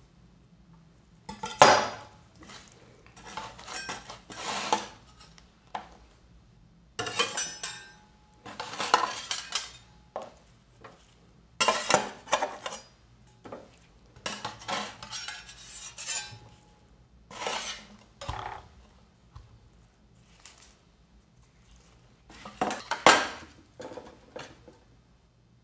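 A steel knife and metal scrapers chopping, scraping and clinking on the steel freezing plate of an ice cream roll machine as red dragon fruit is cut up. The sound comes in irregular bursts of strokes with short rests between.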